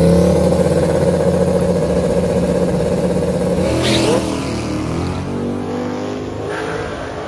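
Fox-body Mustang drag car's engine held at high revs on the starting line, then launching about four seconds in with a sharp crack and pulling away down the track, the sound falling in pitch and fading.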